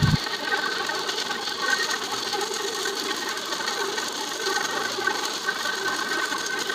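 Music cuts off right at the start, leaving a steady hiss of static-like noise with a faint wavering tone in it.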